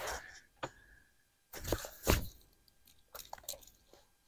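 Handling noises: a few short rustles and knocks, the loudest about two seconds in.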